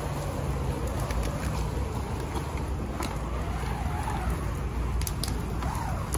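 Large open fire of burning debris, with scattered crackles and pops over a steady low rumble.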